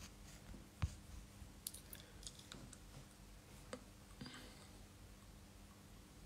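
Faint scattered clicks and taps of a pen being bitten and knocked against the teeth, the sharpest about a second in.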